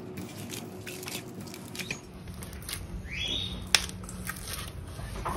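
Stiff maida-and-semolina dough being kneaded by hand in a stainless steel bowl after a little water has been worked in: irregular soft sticky squelches and small clicks. There is one brief rising squeak about three seconds in.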